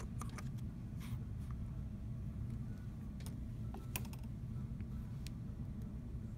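Scattered light clicks and taps of tiny metal screws and a small hex key being handled and set down on the bench, a dozen or so irregular ticks over a steady low hum.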